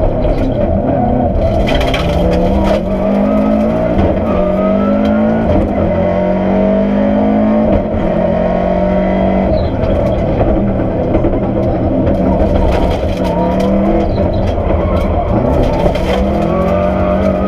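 Historic rally car's engine, heard from inside the cockpit, accelerating hard at stage pace. Its pitch climbs and then drops again and again as it pulls through the gears and shifts.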